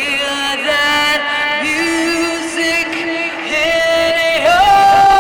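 Live band music with a singer holding long notes, stepping up to a higher held note near the end.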